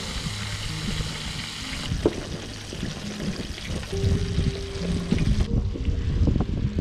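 Background music over hot oil sizzling in a pan as battered fish fries. The sizzle is strongest at first, weakens about two seconds in and cuts off shortly before the end.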